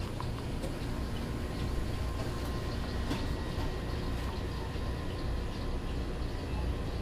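Slurpee frozen-drink machine running with a steady low mechanical rumble and a faint steady hum, with a few small clicks.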